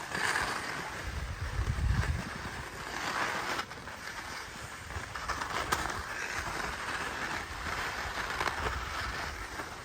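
Ski rope tow running: a steady mechanical rattle and hiss of the rope moving over its pulleys, with a few low rumbles.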